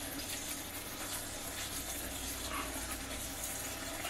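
Green chili chicken curry simmering in a pan: a steady hiss with faint soft bubbling.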